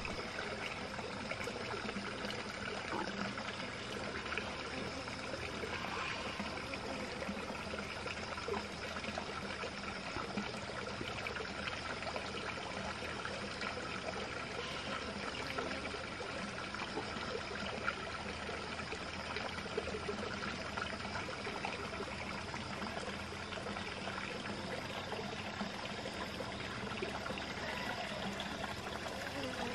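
Flowing water trickling steadily.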